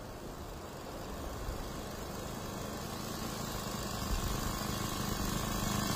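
Propeller-powered motorcycle approaching, its engine drone growing steadily louder, with a steady engine tone coming up out of the background about two seconds in.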